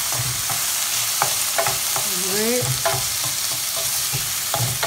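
Onion, bell pepper and pineapple pieces sizzling in hot oil in a stainless steel pan, with irregular scrapes and knocks of a stirring utensil against the pan.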